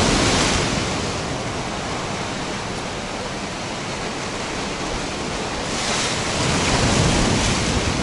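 Sea surf breaking and washing over shore rocks and a seawall, with wind buffeting the microphone. The waves are loudest at the start, ease off, then surge again about six seconds in.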